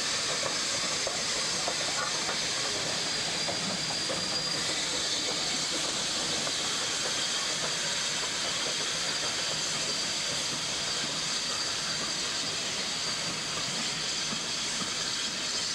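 Steam locomotives hauling a train past, their escaping steam making a loud, steady hiss, with faint wheel clatter underneath. A thin whistle-like tone in the hiss stops about four seconds in.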